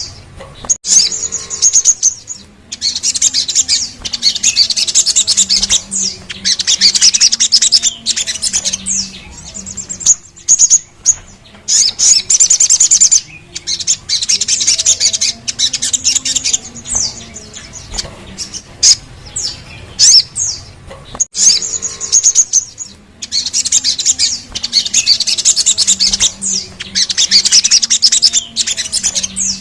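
Little spiderhunter (sogon) song: long rolling trills of fast, high repeated notes, each lasting a few seconds, alternating with short sharp call notes. A faint low wavering hum runs underneath.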